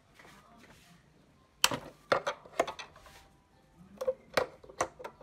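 A long screwdriver working a screw in a plastic air filter housing: a run of sharp, irregular clicks and taps of metal on metal and hard plastic, starting about a second and a half in.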